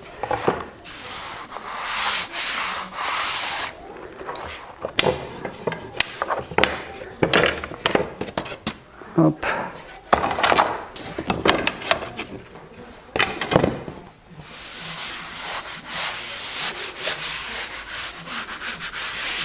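Thin wooden spacer sticks being pulled out and knocking together, with a thin oak veneer sheet brushing over the glued panel. Over the last five seconds there is a steady rubbing as the veneer is pressed and smoothed down onto the panel by hand.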